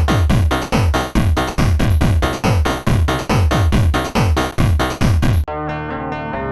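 Electronic dance music with a fast beat of deep, falling-pitch kick drums about four a second; about five and a half seconds in, the beat cuts off suddenly and gives way to softer held synth-like notes.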